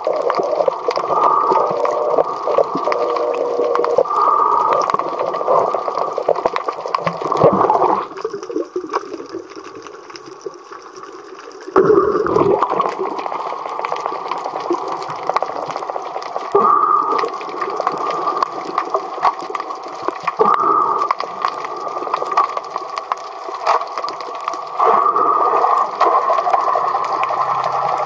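Muffled, crackling water noise heard from underwater, with a steady dense wash and some faint tones. It drops quieter for about four seconds a third of the way in, then comes back abruptly.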